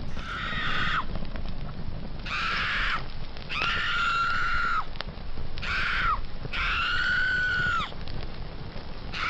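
A woman screaming in a series of about five high-pitched shrieks, each dropping off at the end, over a steady low rumbling noise.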